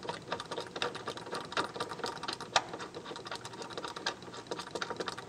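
Hand ratchet with a T50 Torx bit clicking rapidly and unevenly as a bolt is backed out, with one sharper click about halfway through.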